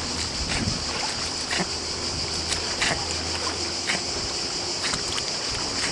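Sea water splashing and lapping in short, irregular strokes around a swimming dog, over a steady high hiss, with a low steady hum that fades out about four seconds in.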